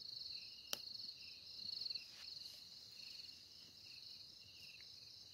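A faint night chorus of crickets: one high trill pulsing without a break, and another shorter, lower trill repeating on and off. A single sharp click sounds about a second in.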